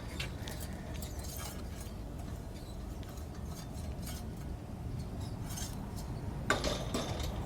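Light metallic clinks and handling noises from tools and hardware being handled, with a short cluster of sharper clinks about six and a half seconds in, over a steady low hum.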